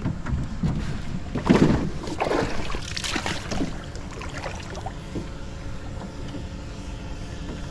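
Jon boat being shoved across shallow river rocks: the hull scrapes on the rocks and the water sloshes, in a few irregular bursts a second or two in, then quieter.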